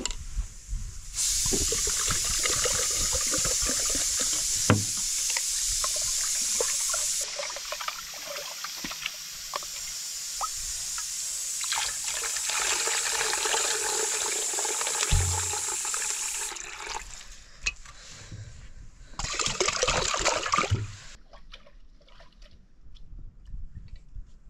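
Water poured in a steady stream for about fifteen seconds, and again briefly near the end, as rice is rinsed in an aluminium pot: clean water poured into the pot and the cloudy rinse water poured off into a metal basin.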